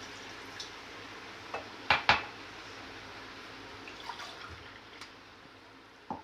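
Water being poured into a cooking pot, a steady splashing hiss that slowly fades, with scattered clinks of kitchen utensils. The loudest sounds are two sharp knocks about two seconds in.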